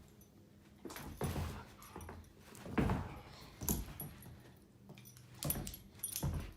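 A dog making short whimpering sounds several times, with a light metallic jingling.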